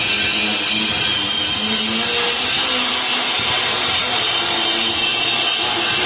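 A hand-held power tool grinding or abrading the steel frame: a loud, steady hiss of abrasion with a motor hum that shifts in pitch now and then.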